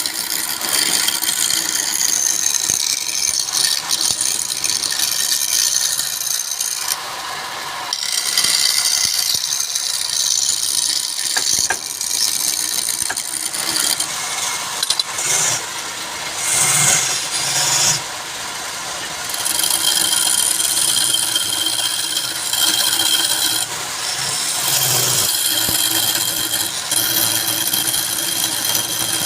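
Wood lathe running while a turning tool cuts the spinning wood: a rough, hissing scrape that changes every few seconds and eases off briefly a few times.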